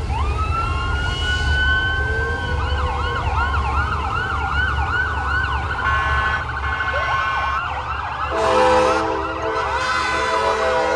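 Several fire truck sirens sounding at once. One winds up at the start and holds a high steady wail, while others cycle quickly up and down. About eight seconds in, a steady multi-note horn chord joins them, over a low engine rumble.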